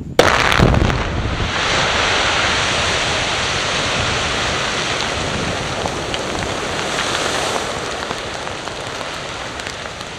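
Quarry production blast: the explosive charges in the rock bench go off with a sudden loud bang a moment in, with a few sharp cracks packed into the first second. A long rushing noise follows and slowly fades.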